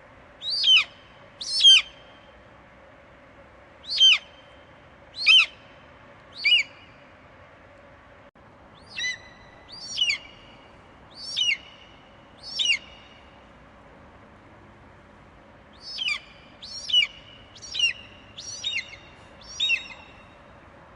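Eagle giving a series of sharp, high-pitched screeching calls, each falling quickly in pitch, in bouts of two to five calls with short pauses between, over a faint steady hiss.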